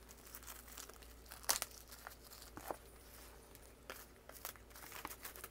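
Clear plastic shrink-wrap being peeled off a tarot deck box, crinkling in faint, scattered crackles, with one louder crackle about one and a half seconds in.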